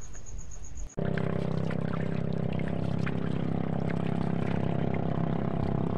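Water splashing and trickling as a paddle works beside a small outrigger boat, over a steady motor hum; it starts abruptly about a second in.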